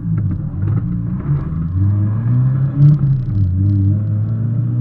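Mazda MX-5 Miata drift car's engine heard from inside the cabin during a drift, its revs rising and falling over and over as the throttle is worked.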